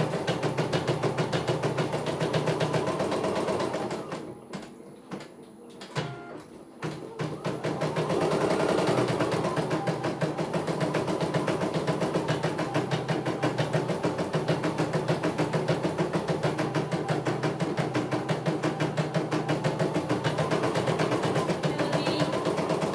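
CNY E900 portable computerized embroidery machine stitching a design, its needle running in a fast, even stream of clicks. About four seconds in, the stitching drops away for roughly three seconds to a few scattered clicks, then carries on at the same pace.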